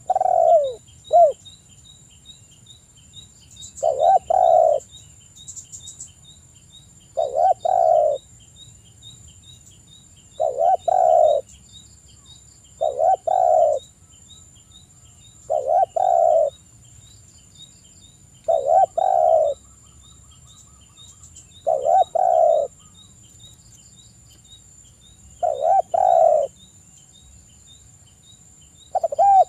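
Spotted dove cooing: a short two-part coo repeated about every three seconds, about ten times. It is the male's full song, used to call out to rival males.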